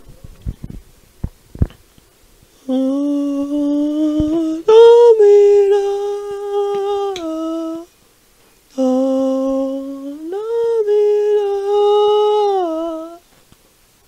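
A voice humming the same drawn-out three-note phrase twice: a low note, a glide up to a long higher note, then a drop to a middle note, each phrase lasting about five seconds.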